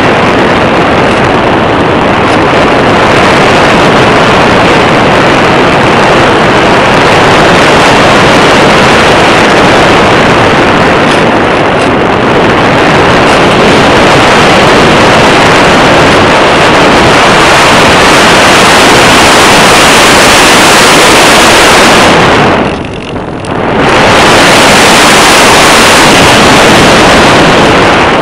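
Loud, steady wind rush over the microphone of a camera riding on a radio-controlled glider in flight, dropping away briefly for about a second near the end.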